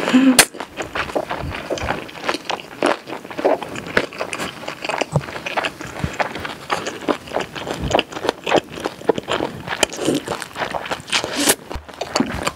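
Close-miked chewing of a mouthful of boiled cabbage wrapped around spicy stir-fried pork and kimchi: an irregular run of small wet mouth clicks and smacks.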